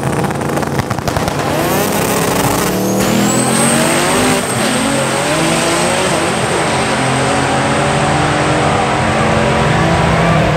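A modified station wagon and a Ford Taurus drag racing side by side, their engines revving up hard through the gears as they accelerate down the strip. A thin high whine rises about three seconds in and holds for most of the run.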